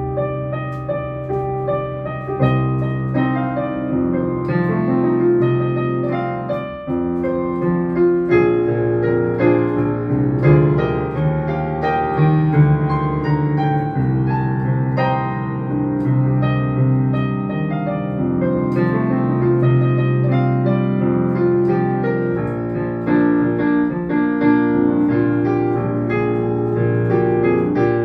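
Digital piano played solo, with held chords under a melody line of struck notes.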